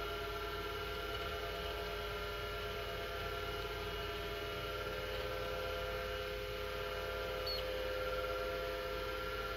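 Apple Widget 10 MB hard disk drive running: a steady whine of several tones over a low hum.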